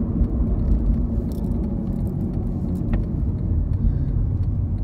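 Steady low road-and-engine rumble inside a moving car's cabin, with a faint click about three seconds in.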